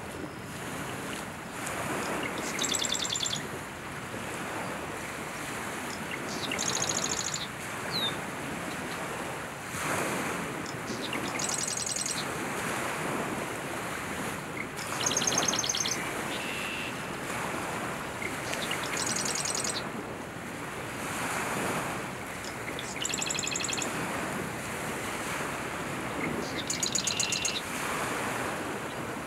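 Male marsh wren singing: a short, fast run of repeated high notes, given seven times about four seconds apart, over a steady rushing noise.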